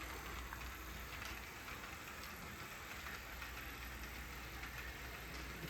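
Faint, steady train sound with a low engine hum, unchanging throughout.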